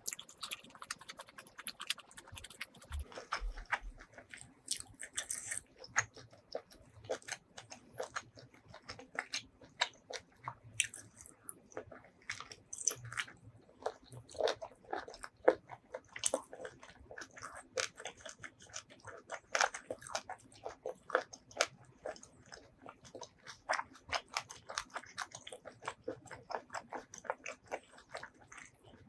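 Close-miked chewing and biting of food, with dense, irregular quick clicks and some crunching throughout.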